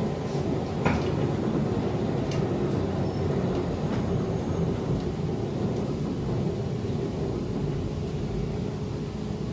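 Interior running noise of a ZiU-682GM1 trolleybus under way: a steady rumble of the moving vehicle and its body, with a couple of sharp clicks or rattles about one and two and a half seconds in.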